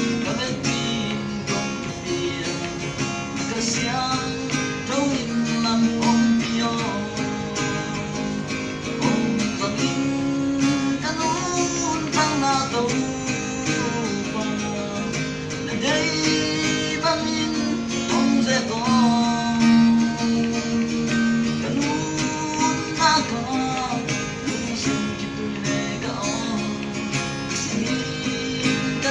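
Music from a praise song: an acoustic guitar accompaniment under a melody line that slides between held notes.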